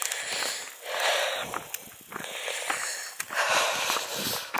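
A walker breathing hard on an uphill climb, a breath about every second.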